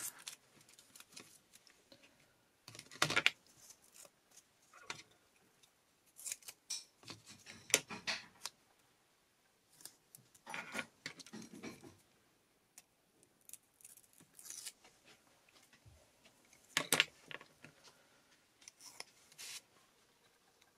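Paper and card being handled on a craft cutting mat: scattered short rustles, scrapes and taps, about half a dozen spread across the stretch, with quiet between them.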